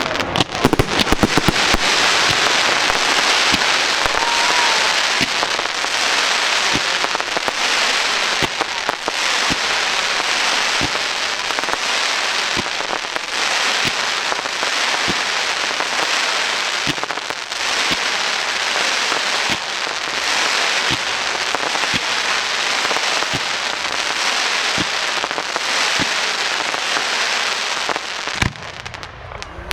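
Fireworks display: a dense, continuous barrage of rapid pops and bangs that stops near the end.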